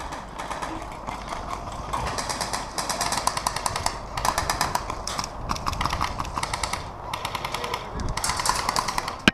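Airsoft guns firing on full auto: several bursts of rapid, evenly spaced shots, each lasting one to two seconds, with short pauses between.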